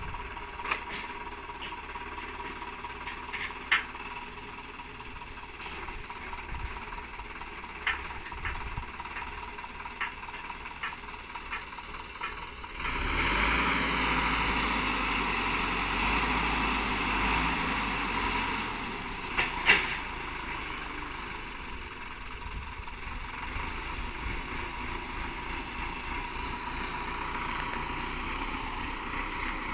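Sonalika tractor's diesel engine running at a low idle, then running louder from about 13 s for some eight seconds before settling back. Scattered sharp metal clicks and knocks sound throughout, the loudest a double knock near 20 s.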